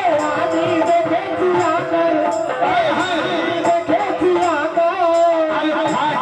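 Live Bangla qawwali: a harmonium plays held and moving notes under a man's singing, while a hand drum keeps a steady beat of about two to three strokes a second.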